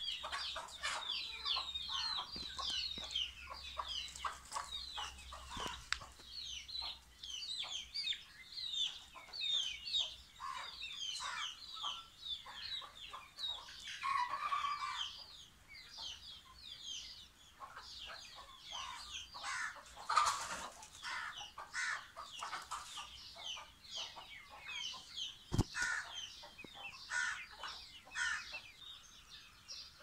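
A flock of chickens clucking and calling: many short, high, falling calls, a few each second, with a few longer, louder calls around the middle. One sharp click comes about two-thirds of the way through.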